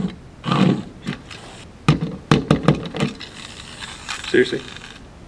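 A small die-cast toy train being handled on a wooden box: a cluster of sharp clicks and knocks about two to three seconds in, with a few short vocal sounds in between.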